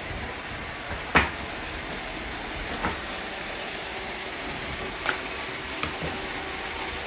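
Robot vacuums running with a steady whir, broken by a few sharp knocks, the loudest about a second in.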